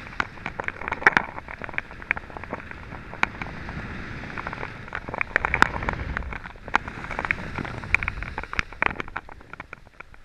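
Skis scraping and chattering over hard-packed, rutted snow on a downhill run, full of sharp irregular clicks, with a low rumble of wind on the camera that swells in the middle and drops away near the end.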